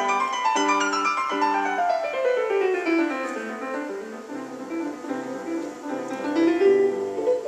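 Solo piano music, with a quick run of notes falling about a second in and climbing back up near the end.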